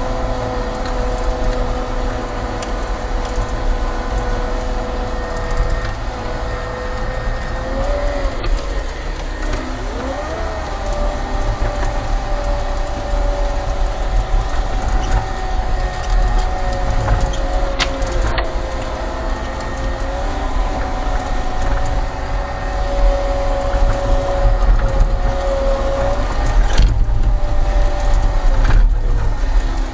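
Caterpillar compact track loader's diesel engine running with a steady whine over a low rumble; the whine's pitch dips and rises a few times as the machine works.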